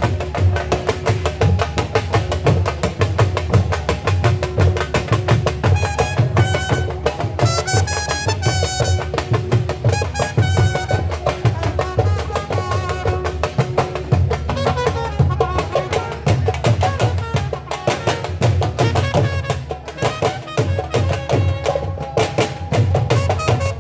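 Dhol drumming at a fast, driving rhythm: dense rapid strokes over a heavy low beat. A higher-pitched melodic line comes in and out over the drums.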